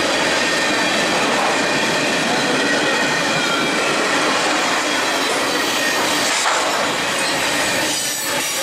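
Freight train of tank cars and covered hopper cars rolling past close by: a steady rumble of steel wheels on rail with thin high wheel-squeal tones over it, and a single knock about six and a half seconds in.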